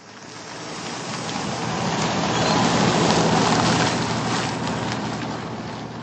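A car's engine and tyres on a wet road, a rushing noise with a low hum underneath that swells as the car approaches and eases off near the end.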